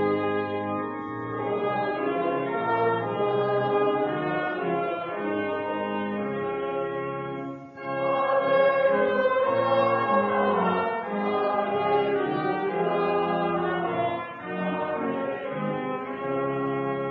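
The 1956 organ at Bethlehem Lutheran Church, Adelaide, playing sustained full chords, with a brief break about eight seconds in.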